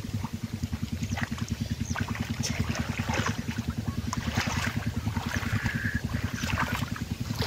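A low engine chugging steadily with a fast, even beat, over light splashing of water as someone wades and gropes through shallow muddy water.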